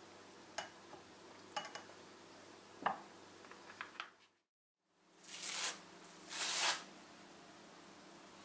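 A silicone spatula scraping and tapping against a glass bowl of custard, with a few light clicks. After a short break, two passes of a rolling pin over floured pastry dough, each under a second and the loudest sounds here.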